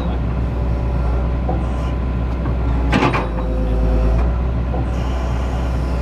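Excavator engine running steadily, with a short sharp knock about halfway through and the engine note heavier for about a second after it.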